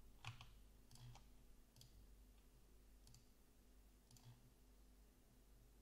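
Near silence with about five faint, scattered clicks from a computer mouse and keyboard at a desk, over a low steady hum.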